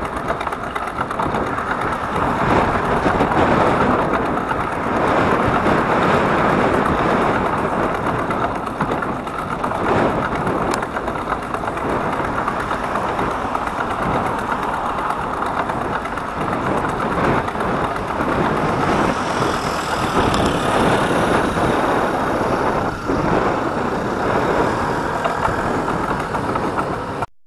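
Steady road traffic noise, with motor vehicle engines running. It cuts off suddenly near the end.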